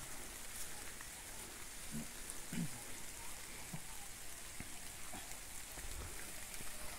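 Light drizzle falling, a steady faint hiss with scattered soft ticks, and a few faint voices about two seconds in.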